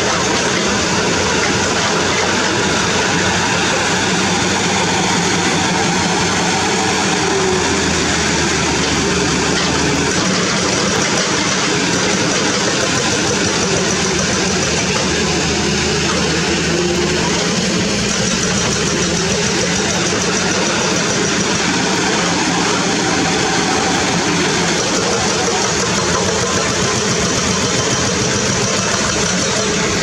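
Diesel engine of a Mitsubishi Fuso dump truck running steadily as the truck drives slowly over rough dirt.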